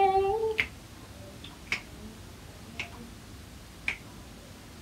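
Fingers snapping in a slow, even beat, four snaps about a second apart, after a short hummed "mmm" trails off at the start.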